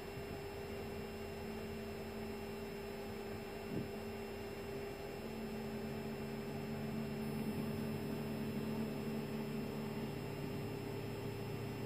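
Steady hum inside an Airbus A320neo cockpit during engine start, with lower tones growing louder from about five seconds in as an engine spools up. A single soft knock about four seconds in.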